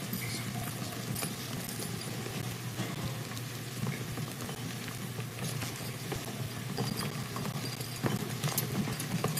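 Auditorium crowd ambience from a large standing audience: a steady rustle and shuffle with scattered light taps, clicks and footsteps.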